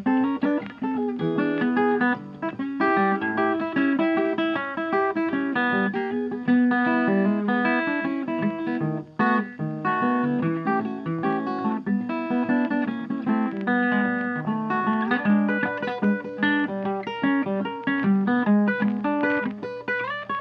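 Background music led by plucked guitar notes.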